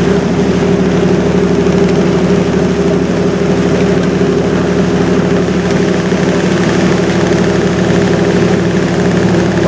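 A river cruise ship's engine running steadily, an even, unchanging drone with a low hum.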